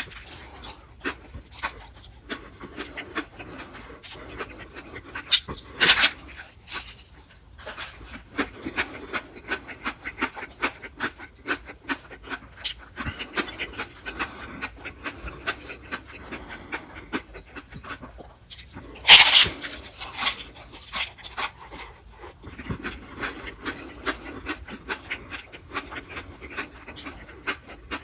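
Close-miked chewing of a soft rolled food, full of wet mouth clicks and smacks, with a loud sharp sound at the bite right at the start and two more about 6 and 19 seconds in.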